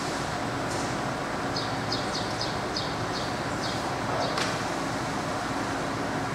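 Steady hum and air noise of workshop machinery running, with a quick run of about eight light, high ticks in the middle and a single sharper click just after.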